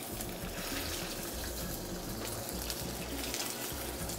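Chicken legs sizzling skin side down in duck fat in a hot cast iron pan: a steady sizzle with scattered fine crackles.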